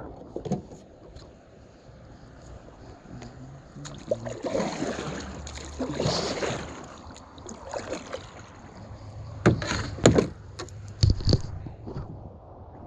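Double-bladed paddle dipping and pulling through the water beside a canoe, with splashing swishes loudest in the middle. Near the end come a few sharp knocks as the paddle is set down in the canoe.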